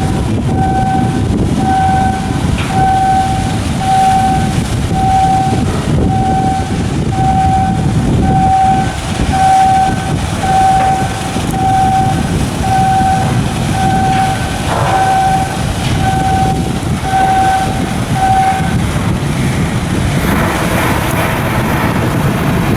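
A ship's diesel machinery runs with a loud, steady rumble while an electronic alarm beeps about once a second, a single steady tone each time; the beeping stops a few seconds before the end.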